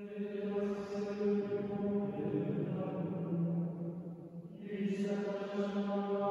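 A choir of monks chanting, holding long steady notes. The singing starts abruptly out of silence, drops away briefly about four and a half seconds in, and then resumes.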